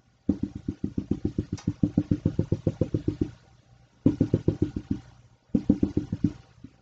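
Marker tip tapping rapidly on a glass lightboard, drawing dashed lines: about nine quick taps a second, in a run of about three seconds and then two shorter runs.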